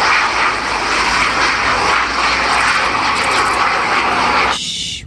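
Jet engines of a Sukhoi Su-27 fighter in flight: a loud, steady rushing noise that cuts off abruptly about four and a half seconds in.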